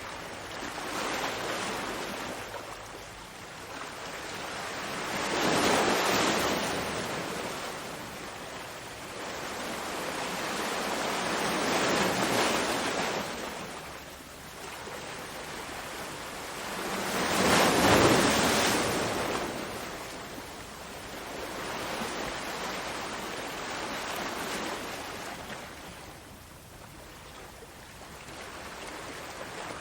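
Small waves washing against harbour rocks, each wash swelling and ebbing every six seconds or so; the biggest comes about two-thirds of the way through.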